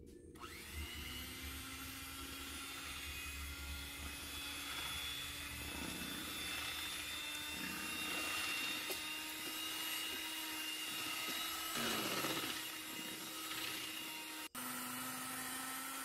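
Electric hand mixer running steadily, its beaters churning flour into a creamed butter and egg batter. The motor starts about half a second in and breaks off for an instant near the end.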